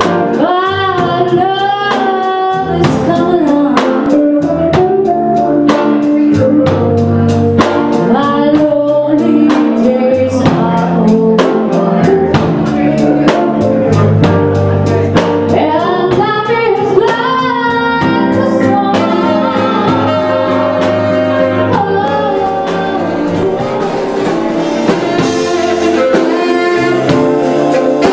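Live jazz band playing, with a woman singing lead into a microphone over keyboard and a steady drum beat.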